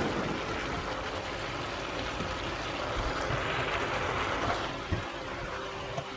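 Chicken pieces sizzling in a frying pan as cut asparagus is dropped in on top, with a few light knocks about five seconds in.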